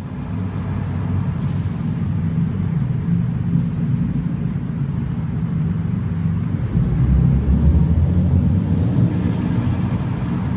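Toyota Supra twin-turbo 2JZ-GTE straight-six running through a Blitz Nur Spec R exhaust with a deep, steady drone that swells about seven seconds in. Near the end comes a fast, high chatter: turbo flutter, compressor surge from the blocked blow-off valve.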